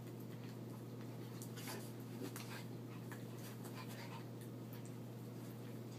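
Small dogs play-wrestling on carpet: short scuffling and scratching sounds with some panting, over a steady low hum.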